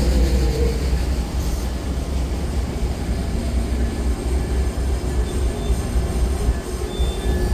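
Amtrak passenger train rolling past at a station, a steady low rumble of the cars on the rails. A tone sliding down in pitch fades out in the first second.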